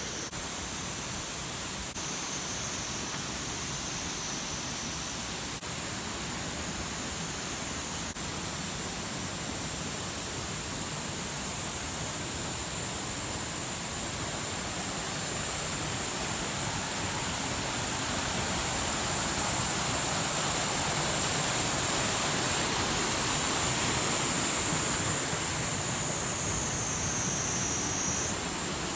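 Waterfall rushing: a steady, even noise of falling water that grows a little louder partway through, with a steady high hiss above it.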